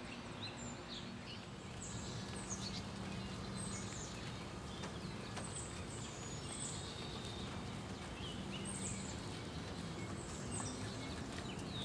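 Outdoor background noise with small birds chirping now and then in short, high, falling notes, over a faint steady hum.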